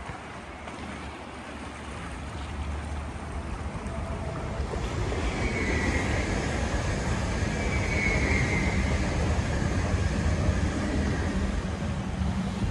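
Electric passenger train running past on the lakeside line: a rumble and rush that build up over the first few seconds and stay loud, with a faint high whine twice in the middle.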